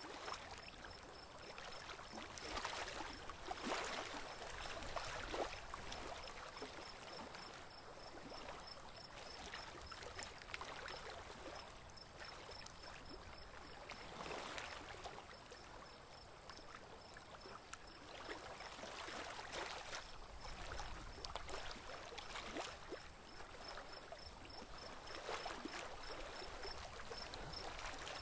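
Water swishing and splashing along the hull of a small boat moving slowly through calm river water, coming in irregular surges.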